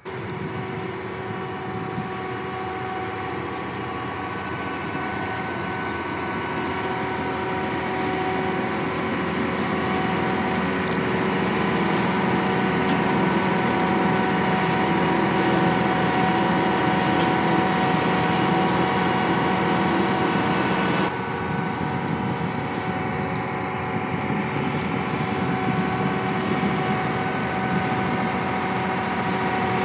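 John Deere T660 combine harvester running while stationary: a steady engine hum with several constant whining tones from the machine. It grows gradually louder over the first dozen seconds, and the sound steps down abruptly about two-thirds of the way through.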